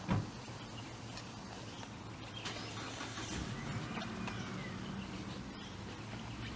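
A motor vehicle engine running steadily in the distance as a low hum, rising a little in the middle. A single low thump just after the start.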